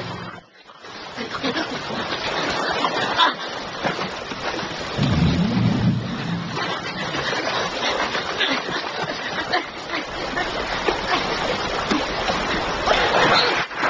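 Whitewater river rushing and splashing, with a low animal growl lasting about a second and a half, starting about five seconds in.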